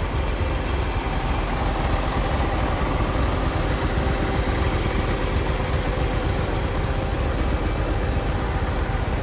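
John Deere 140 garden tractor's engine idling steadily.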